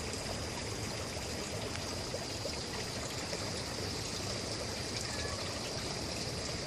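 Steady rushing outdoor noise with a faint, continuous high-pitched whine over it; no thunder claps.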